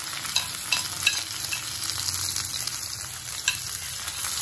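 Chopped capsicum and tomato sizzling as they go into hot oil with onions and green chillies in an aluminium kadhai. A metal spoon scraping them off a plate makes a number of sharp clicks.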